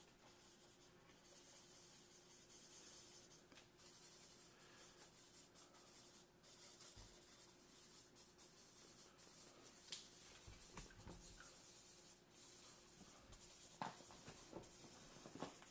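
Faint scratching of a felt-tip marker brushed lightly across paper in curves and swirls, with a few light taps in the second half.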